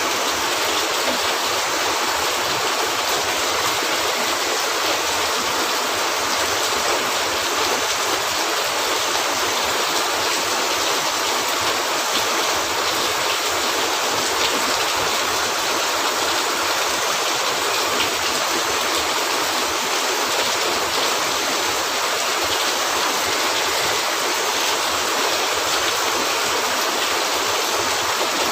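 Steady heavy rain: a dense, even hiss that does not let up or change.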